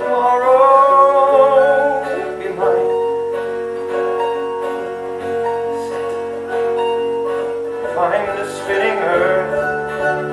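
Live rock music: a man singing long held notes over guitar, with steady sustained chords underneath; the sung phrases come at the start and again near the end.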